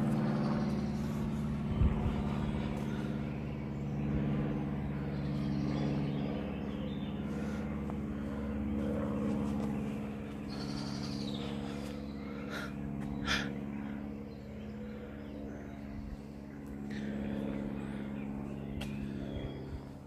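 An engine running steadily, its low hum holding a constant pitch. A couple of short high chirps come about halfway through.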